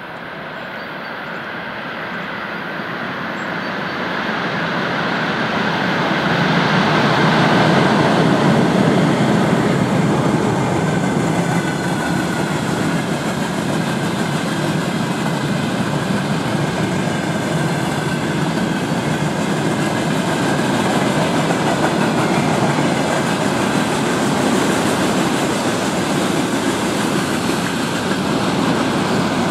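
Freight train hauled by a VL80K electric locomotive approaching and rolling past: the noise grows louder over the first eight seconds or so, then holds steady as tank cars and covered hopper wagons run by on the rails.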